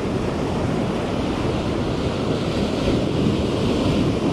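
Ocean surf breaking on a sandy beach and washing up the shore: a steady rush of waves.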